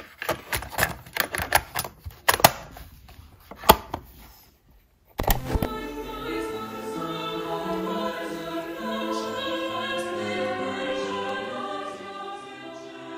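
Plastic clicks and clatter as a cassette is seated and the door of a Soundesign Sports portable cassette player is shut, then one sharp click of the play key a little after five seconds in. Choral and orchestral music then plays from the tape through the player's small speaker, muffled with no highs.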